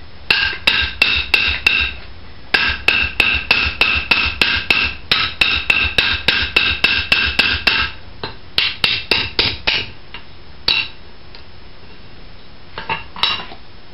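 Small hammer peening and finishing the head of a 3/8-inch forged rivet seated in a steel punch plate (header). The blows are quick, about three a second, each with a ringing metal note, with a short pause about two seconds in. After about eight seconds the strikes thin out to a few single blows, and two light taps come near the end.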